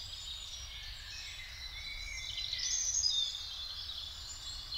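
Songbirds singing at once, overlapping chirps and warbles that grow busier and louder about three seconds in, over a low steady background rumble.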